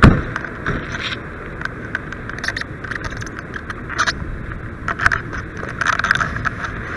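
Pierce Arrow XT fire engine's diesel running steadily at the scene, with a loud knock at the very start and scattered short knocks and clanks of gear being handled.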